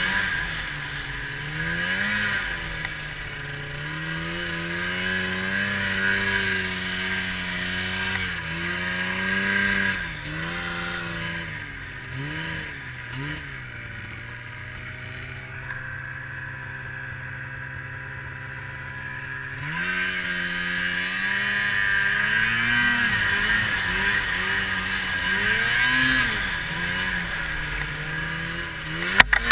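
Arctic Cat 700 snowmobile's two-stroke engine revving up and down as it works through deep powder. Midway it settles to a steady, quieter idle for about five seconds, then revs again. A couple of sharp knocks come near the end.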